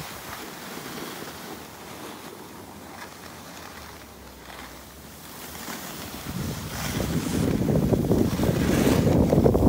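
Wind buffeting the microphone and the rushing scrape of snow sliding underfoot as the filmer rides down the slope. It grows louder and heavier from about six seconds in.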